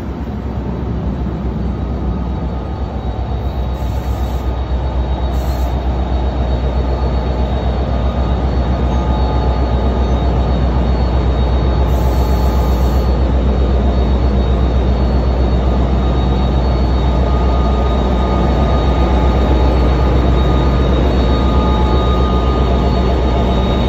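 NJ Transit diesel locomotive running: a steady low engine drone with a thin high whine above it, growing steadily louder as the locomotive gets closer.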